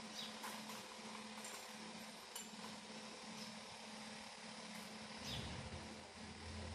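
Faint outdoor ambience: a steady low hum with a few short, high, falling chirps, and a low rumble that comes in about five seconds in.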